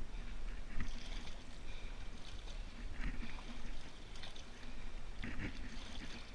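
Shallow swamp water splashing and sloshing in short, irregular bursts as a deer carcass is moved through it beside a canoe, over a low steady rumble.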